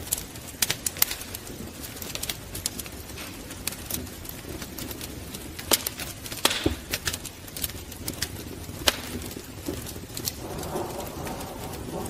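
Wood fire crackling steadily with frequent sharp pops. From about ten seconds in, low cooing calls of a dove join it.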